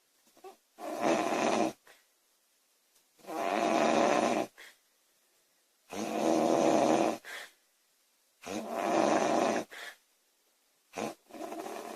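A girl snoring loudly in her sleep: five rough snores about every two and a half seconds, each lasting about a second, with near quiet between them.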